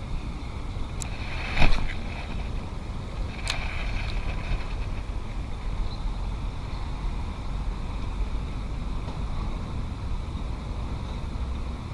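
Steady low rumble, with one loud sharp knock a little under two seconds in and a fainter click about three and a half seconds in.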